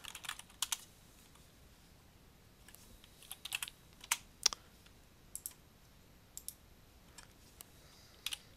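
Computer keyboard typing: a few keystrokes at a time in short clusters, with pauses between.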